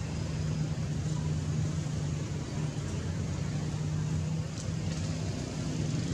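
Steady low hum of an idling motor-vehicle engine, even in level throughout.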